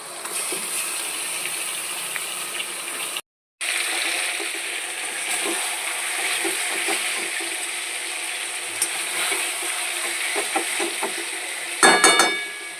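Chicken curry sizzling as it fries in a pan and is stirred, with light scrapes and clinks of the utensil. The sound cuts out for a moment about three seconds in. Near the end there is a loud ringing metal clatter.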